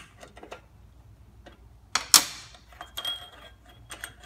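Light metal clicks of a wrench working the float bowl bolt on a small-engine carburetor. About two seconds in comes one sharp clank of the wrench set down on the steel workbench, followed by faint metallic ringing and clinking.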